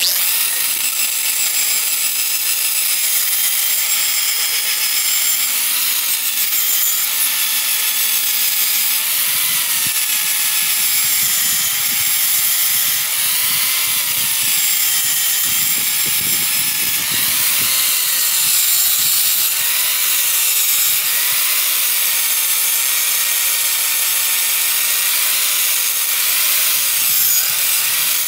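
Electric angle grinder with an abrasive disc grinding rusty steel, starting abruptly and running continuously. Its motor whine repeatedly dips and recovers as the disc is pressed into the metal.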